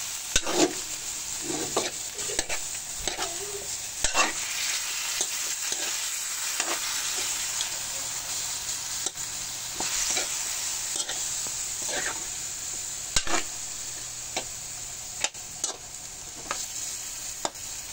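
Raw chicken pieces sizzling in hot oil in a pan while being stirred with a metal spoon, which scrapes and knocks against the pan at irregular moments over a steady frying hiss.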